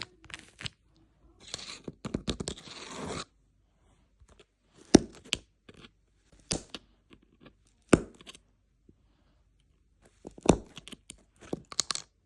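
Fidget board toys being worked by hand: a rough tearing, rasping sound for a couple of seconds, then single sharp clicks a second or two apart, and a quick run of clicks near the end.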